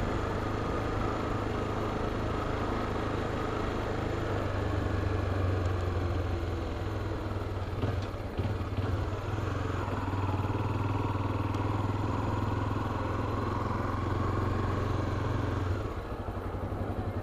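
Motorcycle engine running steadily as the bike is ridden. It dips briefly about halfway through, then drops to a quieter, evenly pulsing idle near the end.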